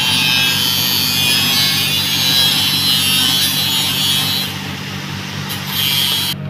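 Stick arc welding on a steel gas pipe with cellulose electrodes, laying the hot pass (the second round after the root): a steady hiss that stops about four and a half seconds in and comes back briefly near the end. A steady low engine hum runs underneath.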